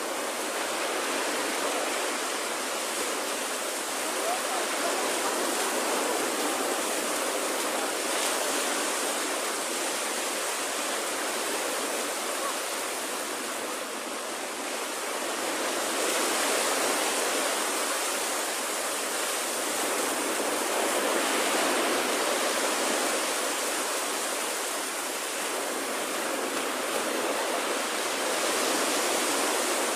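Small waves breaking and washing up on a sandy beach: a steady hiss of surf that slowly swells and eases.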